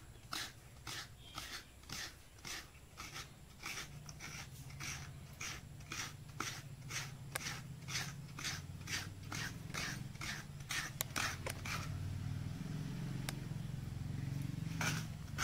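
Coconut flesh being scraped out of a halved coconut with a hand-held coconut scraper, in quick, even strokes of about two or three a second. The strokes thin out in the last few seconds as a low hum comes up.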